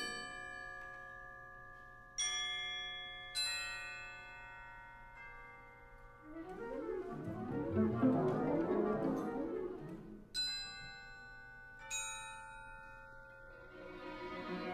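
Contemporary chamber-ensemble music. Sharp struck chords on mallet percussion ring out and slowly fade several times, around a louder, swelling passage from the whole ensemble in the middle.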